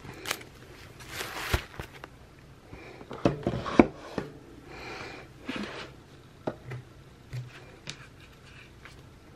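Paper and planner supplies being handled on a desk: short bursts of rustling, mixed with light clicks and knocks, while things are searched through.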